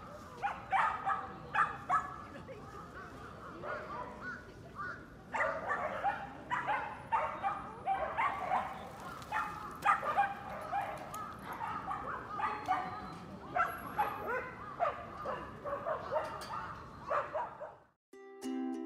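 Dogs barking and yipping repeatedly, mixed with people's voices. Background music starts just before the end.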